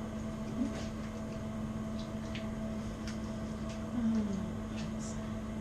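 Steady low electrical hum in a small room, with a few faint scattered clicks and ticks from people handling and eating chicken wings.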